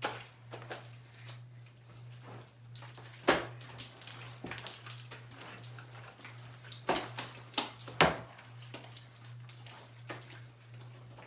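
Thick homemade slime being stirred in a container, with a utensil clacking against the container now and then, several sharp knocks a second or so apart.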